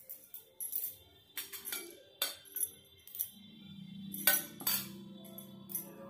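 Wrist bangles clinking and jingling several times in sharp, bright little clicks as the arms move while the hair is twisted up. Soft background music comes in about three seconds in.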